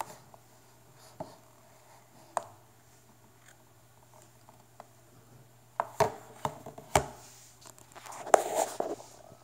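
Hands handling a GPS navigator while switching it on: scattered light taps, a cluster of knocks with one sharper knock about seven seconds in, and about a second of rubbing and rustling near the end.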